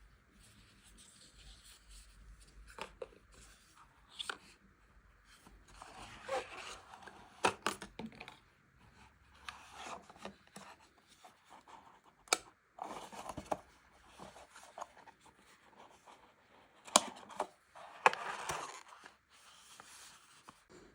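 Hands handling a smartphone and its packaging: intermittent rubbing and rustling with sharp clicks and taps, the two loudest clicks about a second apart near the end.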